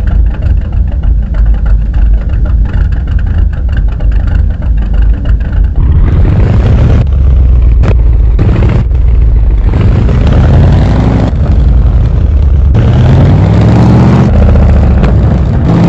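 Car engine sound effect: the engine runs with an uneven throb for about the first six seconds, then revs, rising in pitch several times like a car pulling away through the gears.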